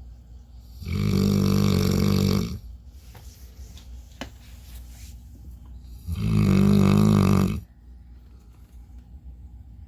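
A sleeping pet snoring with its head in a plastic cone collar: two long snores, each about a second and a half, about five seconds apart.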